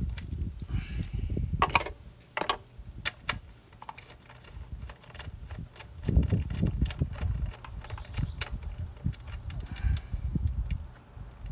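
Scattered metallic clicks and clinks of a 14 mm socket wrench being worked on a motorcycle's rear shock mounting nut, with low handling rumble in between.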